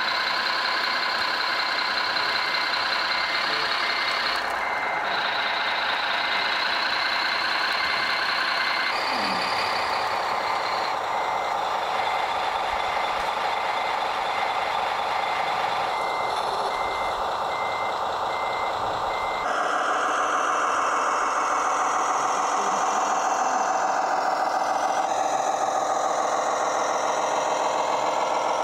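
Remote-controlled model truck's sound module playing a truck engine with a reversing beeper, beeping about two to three times a second. The beeping stops about a third of the way in, returns later for a few seconds, and the engine sound changes abruptly twice.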